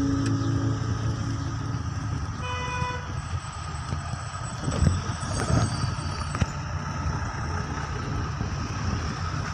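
Engine and road noise of a vehicle driving slowly, heard from inside with the window open. A short car horn toot sounds about two and a half seconds in, and there are a few knocks around the middle.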